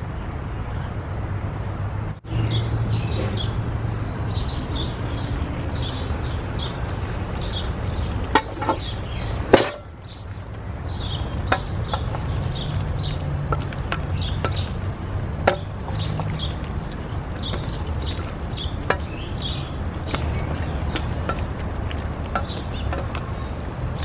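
A wooden spoon knocking now and then against a metal pot while stew is stirred, the sharpest knock about nine seconds in. Birds chirp over a low steady background rumble.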